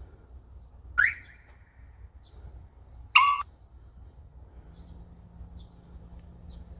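Two short chirps from a truck's aftermarket alarm siren, about two seconds apart, the second a steadier, slightly louder tone. A low steady hum starts about two-thirds of the way in.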